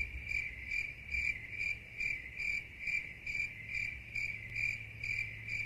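Cricket-chirping sound effect: one high chirp repeating about twice a second, cut in and cut off abruptly. It is the comic 'crickets' gag for a bored, silent wait.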